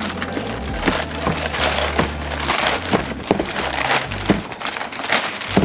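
Packaging and parts being handled: an irregular run of clicks, knocks and crinkling as the unboxed front lip and its small bag of hardware are moved about.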